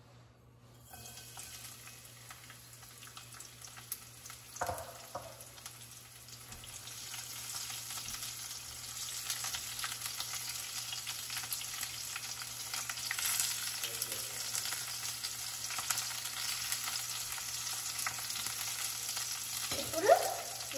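Garlic, cumin, mustard seeds and green chillies sizzling as they fry in hot oil in a stainless steel pan. The sizzle starts about a second in and grows louder, with a spatula scraping and tapping as the spices are stirred. A sharp knock near the end is the loudest sound.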